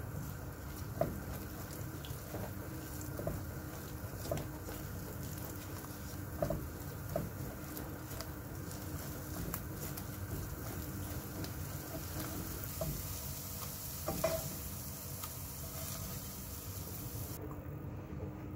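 Beaten eggs frying in oil in a nonstick wok, a steady sizzle, while a plastic spatula stirs and scrapes them, with scattered taps of the spatula against the pan.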